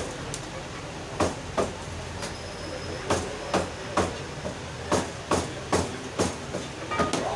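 Sharp knocks and slaps, about a dozen at uneven spacing and often in pairs, from a poultry butcher working a chicken carcass on a steel counter while he skins it by hand. Under them runs a steady background noise.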